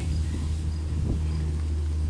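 A low, steady engine drone, with faint insect chirps over it.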